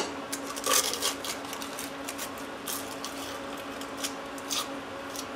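Wax paper and tape being peeled and crinkled off a metal engine block by hand, a few scattered rustles and light clicks over a steady faint hum.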